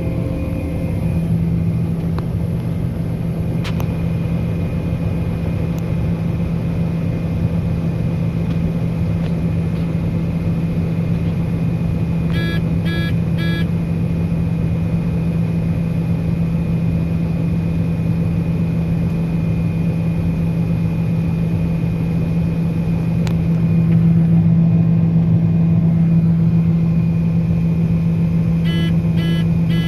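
Diesel farm machine engine running with a steady drone under load. Two sets of three short electronic beeps come about twelve seconds in and again near the end.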